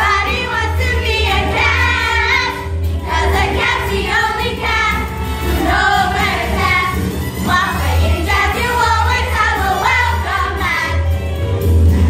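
A children's chorus singing a show tune in unison over instrumental accompaniment with a steady bass line.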